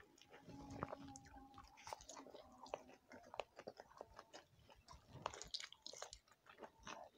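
Quiet close-miked chewing of roti and cauliflower-potato curry, with irregular small mouth clicks and smacks.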